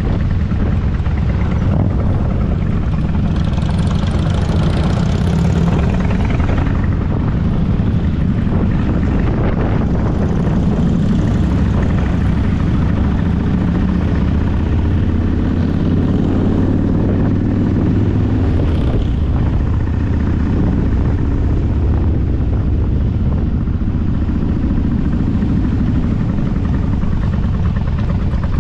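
A vehicle engine drones steadily under way while wind rushes over the microphone, swelling for a few seconds near the start.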